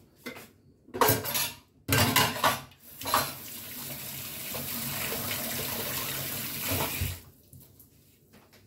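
Dishes and a pot clattering in a kitchen sink, then the tap running steadily for about four seconds before it is turned off.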